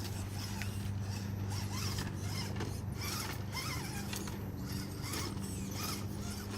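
Axial SCX10 Honcho RC rock crawler's motor and gear drivetrain whirring steadily as it crawls over rocks, with small clicks and scrapes from the tires and chassis on stone.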